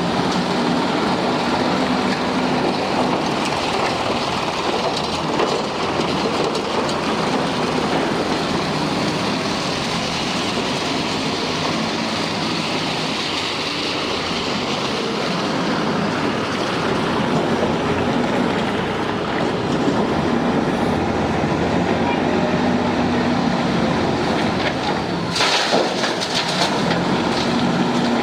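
JCB backhoe loader's diesel engine running under load with continuous mechanical clatter and rattle, and a short louder crash of noise near the end.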